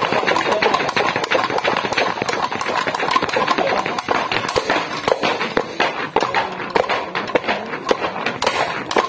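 Heavy battle ropes whipped up and down, slapping the concrete floor in a rapid, irregular run of slaps.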